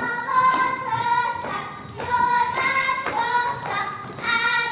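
Children singing a Hungarian folk tune together, the melody moving note by note, with the dancers' steps thudding on the stage floor.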